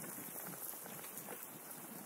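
Footsteps crunching on a gravel forest path, with many small irregular crackles.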